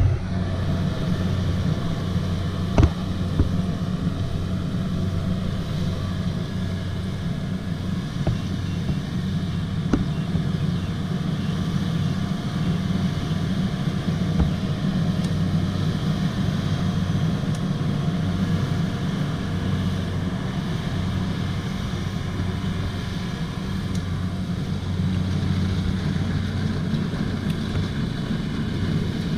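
Kubota DC-70 combine harvester's diesel engine running steadily under load, a constant low hum, with one brief knock about three seconds in.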